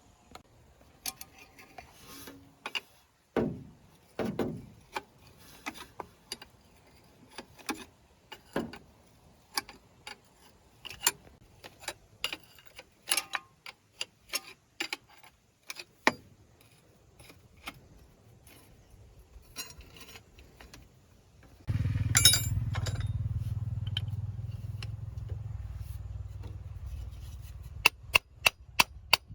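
Metal tools clinking and knocking during hand repair work on a truck. About 22 seconds in, a steady low machine hum starts suddenly and fades slightly over several seconds. Near the end comes a run of sharp, evenly spaced knocks.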